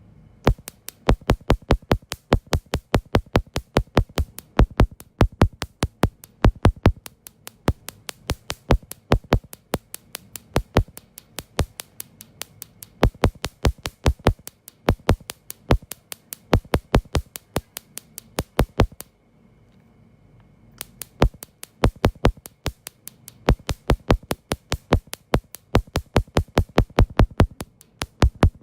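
Sharp snapping clicks of a laser firing pulses during a carbon laser peel, several shots a second, with a pause of about two seconds past the middle.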